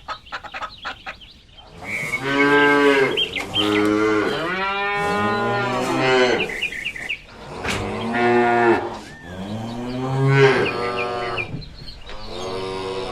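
Cattle mooing: about five long, loud calls, each rising and then falling in pitch, one after another, starting about two seconds in.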